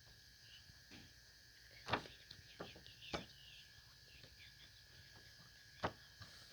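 A few sharp clicks and knocks, the loudest about two seconds in and another near the end, with faint high chirps between them.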